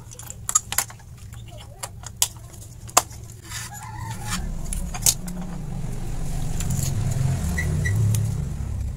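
A few sharp clicks and taps as a TV flyback transformer and its circuit board are handled, then a low rumble swells over several seconds and is loudest near the end.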